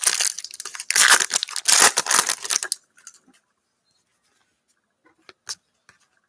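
A foil trading card pack wrapper being torn open and crinkled, a loud crackling rip lasting almost three seconds, followed by a few faint clicks.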